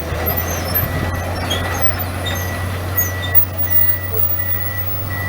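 Komatsu PC200-8 amphibious excavator's diesel engine running steadily, with its travel alarm beeping in regular pulses over the second half and faint high metallic squeaks.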